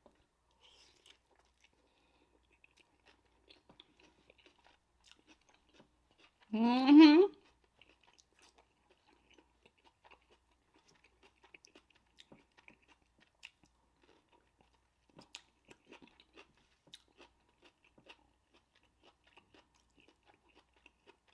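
Eating close to the microphone: faint, scattered wet mouth clicks and soft crunches of a burger being chewed. About six and a half seconds in comes one brief, loud voiced 'mm' from the eater, rising in pitch.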